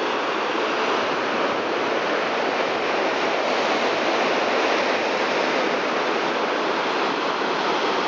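Sea surf on a rocky shore: a steady rush of waves and foam.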